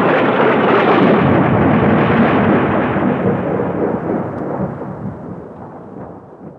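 A loud, dense rumble that starts suddenly and fades away steadily over several seconds.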